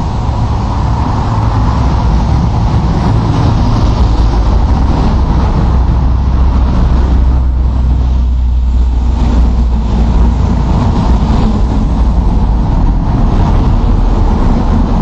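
A loud, steady, deep engine rumble with no break.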